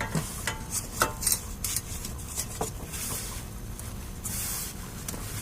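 Metal clinks and scrapes of a socket wrench being fitted and worked on a generator's oil drain plug, a scatter of short clicks that thin out after the first couple of seconds.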